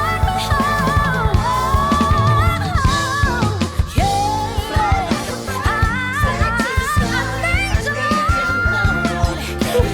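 A woman singing a slow soul ballad with wavering, ornamented runs, over instrumental accompaniment.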